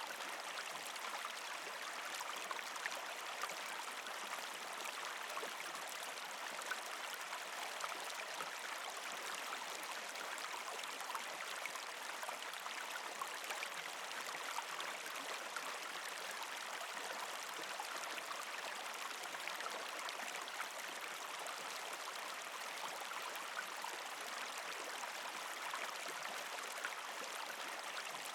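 Creek water running steadily under and around ice, with a constant trickling and gurgling of water over rocks and many small splashy ticks.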